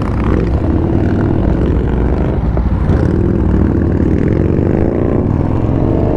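Motorcycle engine running under way, its pitch climbing steadily as it gathers speed, over a heavy low rumble.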